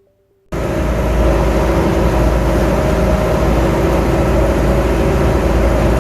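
Fishing boat's engine running steadily, a loud low rumble with a hum, cutting in suddenly about half a second in.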